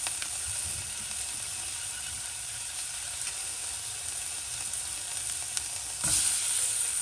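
Oil sizzling steadily in a nonstick pot, frying onions, green chillies and curry leaves. About six seconds in it gets suddenly louder as a spoon drops a piece of young jackfruit into the hot oil.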